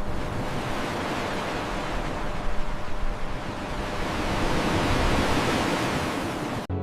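Steady rushing noise of ocean surf that cuts off suddenly near the end, as soft music begins.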